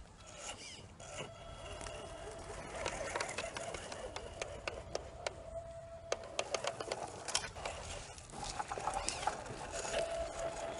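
Electric motor and gear drivetrain of an Axial-chassis RC scale Willys MB jeep whining as it crawls over soil, the whine stopping and starting with the throttle, with scattered crackles of dry leaves and twigs under the tyres.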